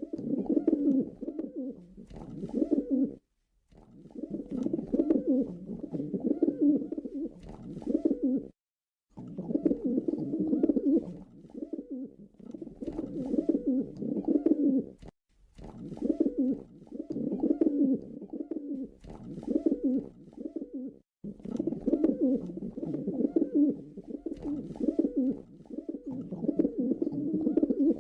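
Pigeon cooing over and over, low throaty coos in runs of about five to six seconds, each run broken off by a short silence.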